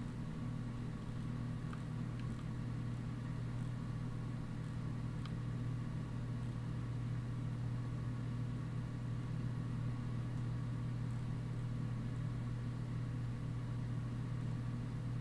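Quiet room tone: a steady low hum over faint hiss, with a few faint clicks in the first six seconds.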